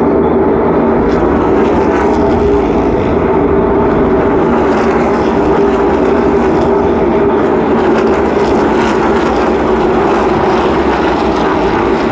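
NASCAR Cup Series stock cars' V8 engines running at racing speed around the oval: a loud, steady drone from the pack that holds without a break.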